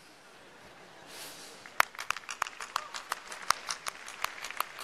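One person clapping hands, sharp single claps at about three a second, starting a little under two seconds in.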